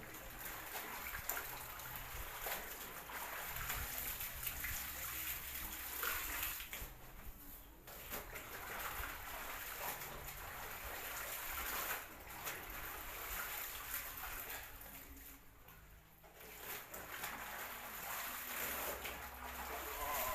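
Water splashing, sloshing and trickling, broken by a few short lulls.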